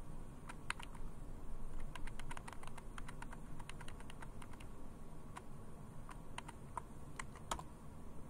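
Computer keyboard keys being pressed to move through a text-mode installer menu: a quick run of clicks in the middle, then scattered single presses, the loudest one shortly before the end.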